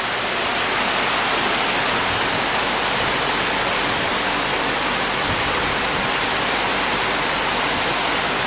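Heavy tropical rain in a steady downpour, drumming on corrugated metal roofs below.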